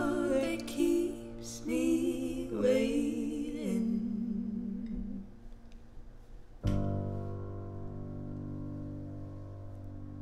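Voices singing a wordless, wavering line over guitar, fading out about five seconds in. Near seven seconds a final guitar chord is strummed and left to ring, slowly dying away to close the song.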